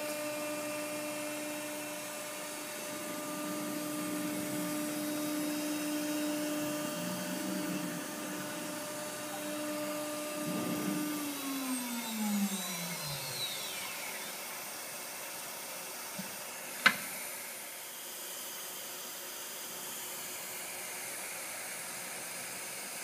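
The 10 horsepower spindle of a MultiCam 3000 Series CNC router runs with a steady whine while the machine cuts a sample circle in the air, then winds down with a falling pitch and stops about 13 seconds in. A single sharp click comes a few seconds later, over a steady hiss.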